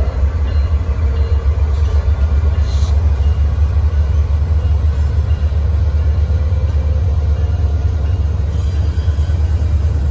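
Norfolk Southern diesel-electric locomotives' engines running with a loud, steady low rumble as the locomotive consist rolls slowly past.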